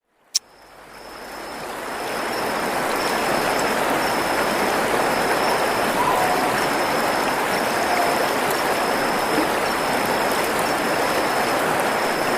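Stream water running steadily, fading in over the first couple of seconds, with a high, thin trill repeating in short pulses over it. A single sharp click sounds just after the start.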